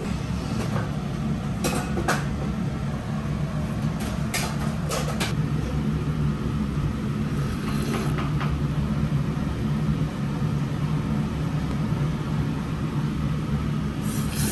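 Steady low rumble of a working ramen kitchen, with a few sharp clinks and knocks scattered through, about seven in all.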